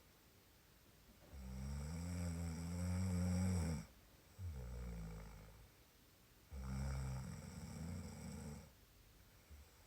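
Someone asleep snoring: a long low snore about a second in, a shorter softer one just after, and another long snore about six and a half seconds in.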